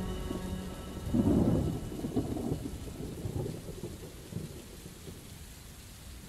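A thunderstorm: a roll of thunder peaks about a second in and slowly dies away over steady rain.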